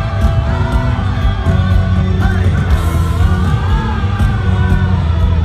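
Live pop music through a concert PA: singing over heavy bass and a steady beat.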